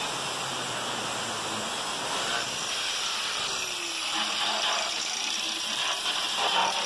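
Angle grinder cutting through a thin stainless-steel washing-machine drum, a steady grinding noise that stops partway through. Later come a few knocks of the cut metal drum being handled.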